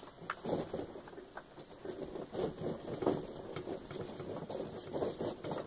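Steel tire chain being worked over a garden tractor's rear tire by hand: irregular light clinks and scrapes as the links are pulled across the tread to take up slack.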